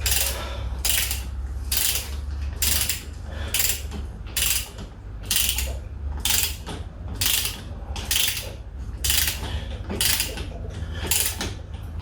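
Torque wrench ratchet clicking in short runs about once a second, one run on each back-swing, as the primary compensator nut is run down toward 140 N·m. A steady low hum sits underneath.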